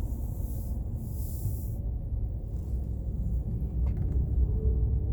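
Cabin rumble of a 2019 Ram 1500's driveline and tyres while driving in 4WD Auto. A faint groaning tone comes in near the end: the scraping or groaning noise in turns that the owner takes for an abnormally noisy 4WD Auto system.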